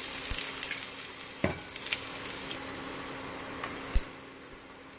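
Ginger-garlic paste sizzling in hot coconut oil with mustard and fenugreek seeds in a stainless steel pot, stirred with a metal ladle that clinks against the pot a few times. A sharp clink comes about four seconds in, and the sizzle is quieter after it.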